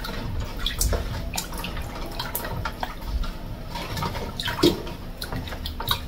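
Hands sloshing and rubbing chunks of raw mutton in a stainless steel bowl of water, washing the meat, with irregular splashes and drips; one louder splash comes near the end.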